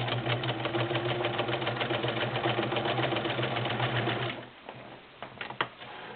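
Morse Apollo 6500 all-metal sewing machine running in low gear: a steady motor hum with rapid, even needle strokes, stopping about four seconds in. A few light clicks follow.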